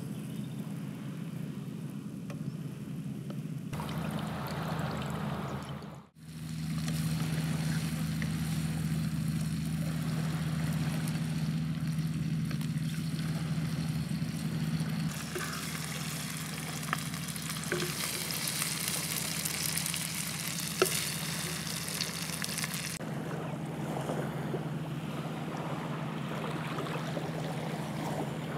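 Squid sizzling in a frying pan while a spatula stirs and scoops it out, with a few sharp clinks of the spatula on the pan, the loudest about three quarters of the way through. A steady low hum runs underneath throughout.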